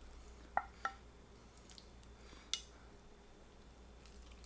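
Eating noises from someone working on a barbecue chicken wing: a few short, soft clicks, two close together about half a second in and one more about two and a half seconds in, over quiet room tone.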